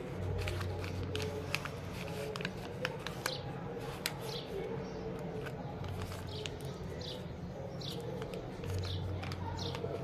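Paper crinkling and rustling in short sharp clicks as hands fold and handle a small taped paper blind bag, with short high chirps repeating in the background.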